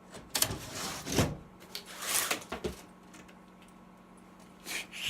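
A window being pushed shut: two scraping, rattling slides, about half a second in and about two seconds in.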